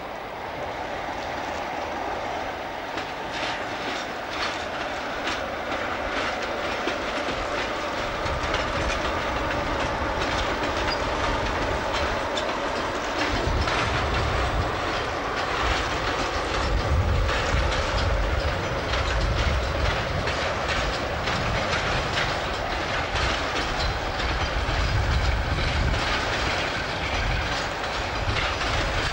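British Rail Class 47 diesel locomotive hauling a train of freight wagons past, the wheels clattering in a steady clickety-clack over the rail joints. A deeper rumble comes in after about eight seconds as the wagons roll by.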